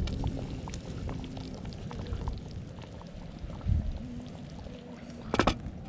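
Ribs cooking in a camp oven, bubbling and sizzling, with small ticks throughout and a few sharp clicks near the end.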